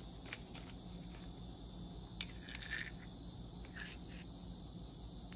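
A Morse taper 2 arbor being fitted into the back of a half-inch drill chuck: one sharp metal click about two seconds in, then a few faint metal scrapes and taps, over a steady low hum.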